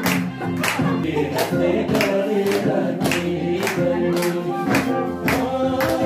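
Music playing: a song with singing over a steady beat, about two and a half beats a second.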